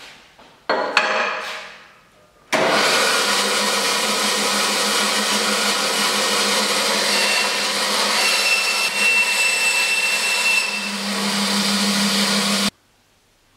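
Bandsaw cutting through a block of aluminium: a loud, steady whine and rasp of the blade in the metal, starting suddenly about two and a half seconds in and stopping abruptly near the end. A shorter burst that fades away comes first, about a second in.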